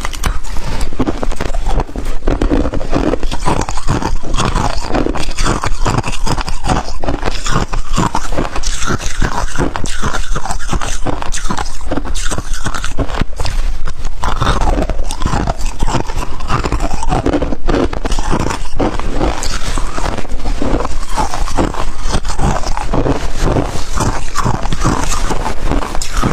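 Close-miked biting and chewing of freezer frost ice: a dense, continuous run of crunches.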